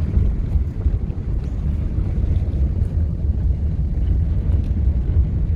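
Steady low rumble of road and engine noise inside a Honda Fit's cabin while driving, with no suspension knocking: new shock absorbers have been fitted.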